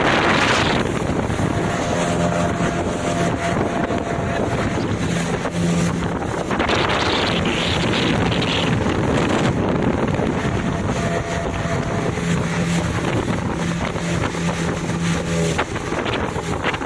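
A motor's steady hum that fades in and out, over wind buffeting the microphone.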